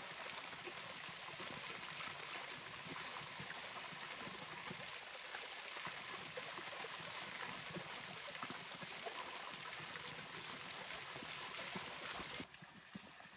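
Running water, a stream flowing steadily, which cuts off suddenly near the end to a much quieter background.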